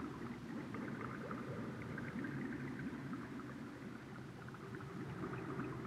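Underwater sound effect: a low rumble with steady bubbling and gurgling, many small bubble blips over it.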